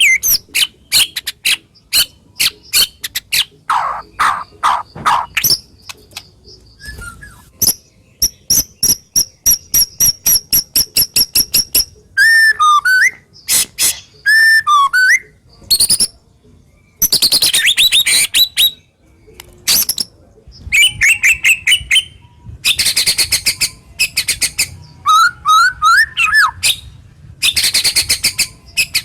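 White-rumped shama (murai batu) singing loudly: fast volleys of sharp, harsh repeated notes, a long high thin whistle held for a few seconds, and several swooping whistled phrases, all run together without pause.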